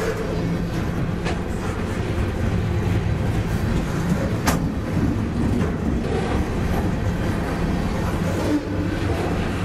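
Freight train's container flatcars rolling past: a steady low rumble of steel wheels on the rails, with a few sharp clicks, the loudest about four and a half seconds in.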